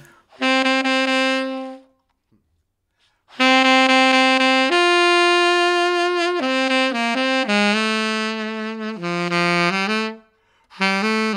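Selmer Signature tenor saxophone played solo: one held note, a short pause, then a longer phrase of several notes that steps down in pitch, with a new note starting near the end.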